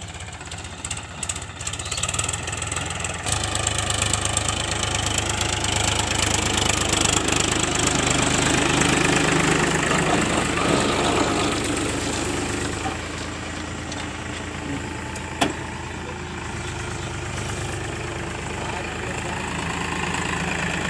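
Powertrac Euro 50 tractor's diesel engine running, getting louder a few seconds in and easing off again in the second half, with one sharp click partway through.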